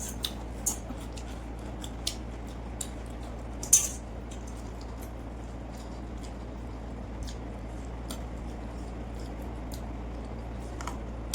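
Eating sounds: scattered sharp clicks and crunches of someone eating a meal of fried fish and rice, loudest at about four seconds in, then only faint occasional ticks, over a steady low hum.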